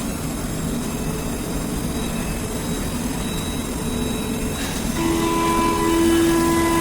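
Hurco 5-axis CNC milling machine running, a steady mechanical noise with faint whines; about five seconds in a strong steady whining tone starts and holds as the cutter works.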